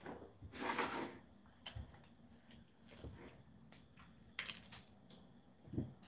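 A plastic rotisserie-chicken bag rustles briefly near the start. After that come faint, soft tearing and handling sounds as hands pull apart a whole rotisserie chicken in a bowl, with a couple of short, louder rustles near the end.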